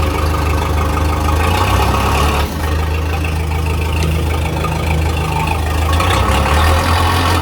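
Backhoe engine running steadily at idle, with a brief dip in loudness about two and a half seconds in.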